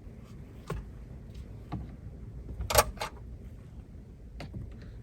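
Hands working wiring and plastic dash trim: a handful of short clicks and knocks, the sharpest about three seconds in.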